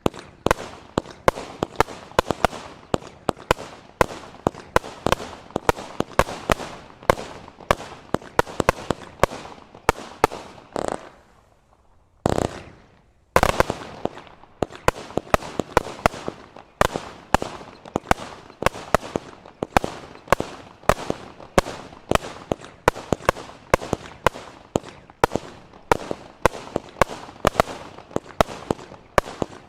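Pegasus firework going off: a rapid string of sharp bangs, two or three a second, that pauses briefly about halfway through with one heavier boom, then carries on.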